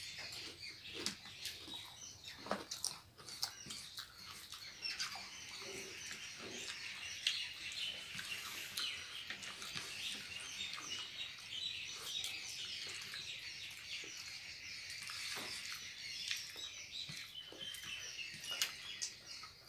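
Close-up eating sounds: scattered small clicks and smacks of chewing and of fingers picking rice off plates, with small birds chirping in the background throughout.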